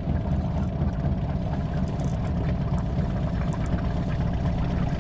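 Small outboard motor running steadily at low speed, holding the boat in place against the river current.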